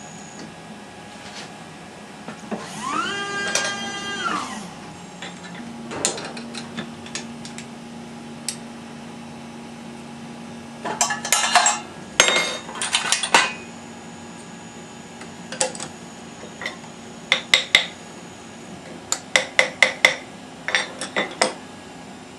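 Litton automated glass lathe running through its cycle after a bend: a motor whirs up in pitch, holds, and winds back down about three seconds in, then a steady low hum sets in. Two runs of sharp metallic clicks and clanks from the machine's moving parts follow, one around the middle and a longer one over the last several seconds.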